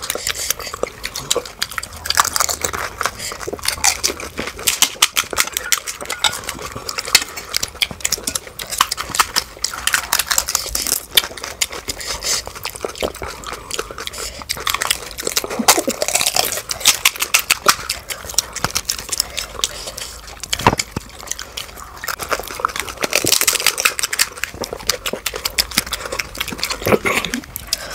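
Crisp panipuri (golgappa) shells crunching as they are cracked and bitten, with wet sounds of spiced water, played at double speed: a dense, rapid run of crackles and clicks.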